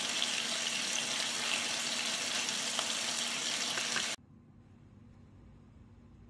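Ninja Foodi Smart XL Grill running with a steady hiss and a faint low hum. It cuts off suddenly about four seconds in, leaving near quiet.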